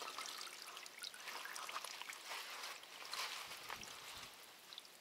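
Petrol-thinned bitumen dripping and trickling from a freshly tarred fishing net back into the bucket. It is faint, a patter of many small drips.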